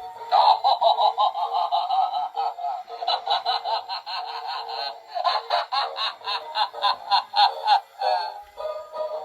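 Battery-powered animated laughing clown Halloween prop playing its recorded voice track through its small built-in speaker: a thin sound with no bass, pulsing in quick bursts about four a second like laughter.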